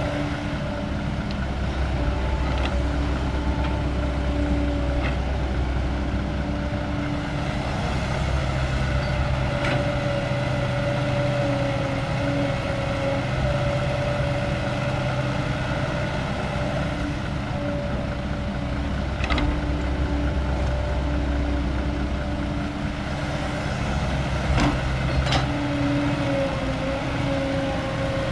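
Heavy diesel engine of an old Caterpillar excavator running steadily as it digs and loads soil, its deep rumble swelling and easing with the work, with a few sharp knocks scattered through.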